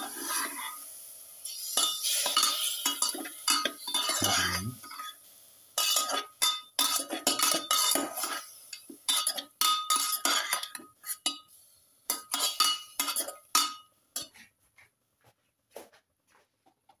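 Perforated metal spoon scraping and clinking against a steel pot as marinated fish pieces are stirred: a quick, uneven run of clinks and scrapes that thins out and stops about fourteen seconds in.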